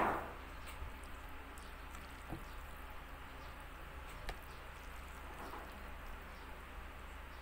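Faint wet squishing of saucy stir-fried black bean hot chicken flavour ramen being twirled and lifted on a fork, with a couple of light clicks of the fork against the plate.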